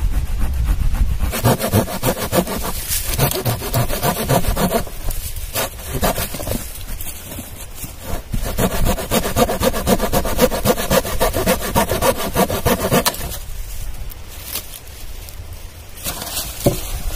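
A small hand saw cutting through a dead, moss-covered fallen log: runs of quick back-and-forth strokes with short pauses between them. The sawing stops about four seconds before the end.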